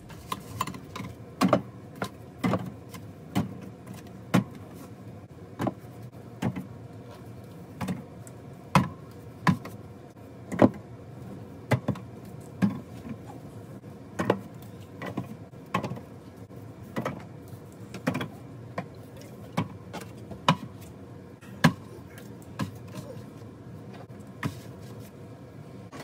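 A string of sharp knocks and clunks, roughly one a second and unevenly spaced, over a faint steady hum.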